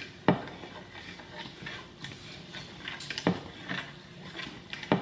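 Hard object knocking on a glass bowl: a sharp knock just after the start, another about three seconds in and a third near the end, with lighter clicks and handling noise between.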